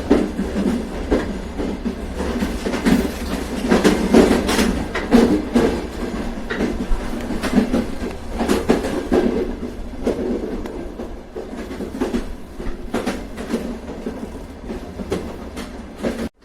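Train rolling along the track: a steady low rumble with wheels clacking over rail joints, several clacks close together then spaced out. The sound cuts out for an instant at the very end.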